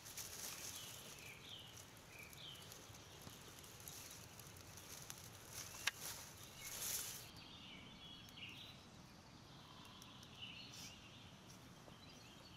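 Dry leaves and grass kindling catching fire in a mud stove: faint crackling with a sharp snap about six seconds in. Small birds chirp faintly.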